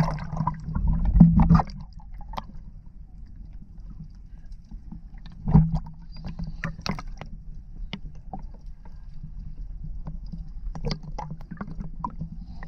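Sea water sloshing and splashing against an action camera held at the surface, with a muffled low rumble in the first second and a half as the camera dips under. After that, quieter lapping with scattered small splashes and drips, the loudest splash about five and a half seconds in.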